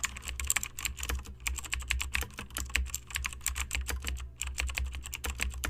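Rapid, irregular light clicking and tapping, several clicks a second, over a low steady hum.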